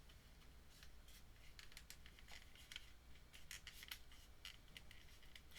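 Faint crinkling and rustling of a small package being worked open by hand, with a run of short, sharp crackles starting about a second and a half in.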